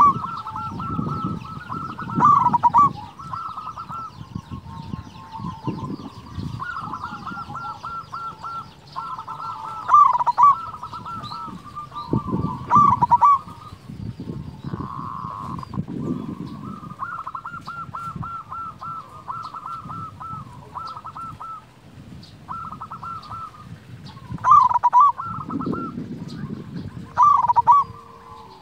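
Zebra dove (perkutut) cooing without pause: repeated phrases of rapid staccato notes, broken by about six louder bursts.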